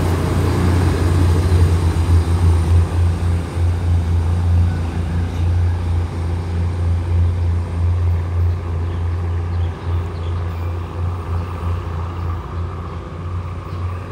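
Diesel multiple-unit commuter train pulling away: a steady low engine drone with wheel and running noise that slowly fades as the train recedes down the track.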